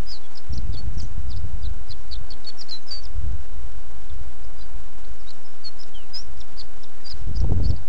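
Wind buffeting the microphone in gusts, a low rumble that swells and fades, with many short high bird chirps, several a second, over it.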